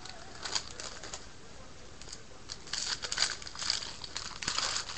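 A foil trading-card pack (2012 Bowman Jumbo) being torn open and crinkled in the hands, in a string of short crackling, rustling bursts that come thickest in the second half.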